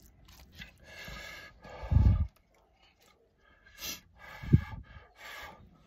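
A man sniffling and breathing noisily through his nose as very spicy instant ramen makes his nose run. There are short puffs of breath, with two louder, lower snorts about two seconds and four and a half seconds in.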